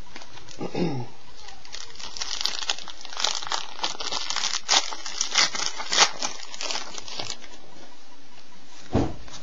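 A foil trading-card pack wrapper being torn open and crinkled by hand, a dense crackle of quick sharp rustles for about five seconds. A single low thump comes near the end.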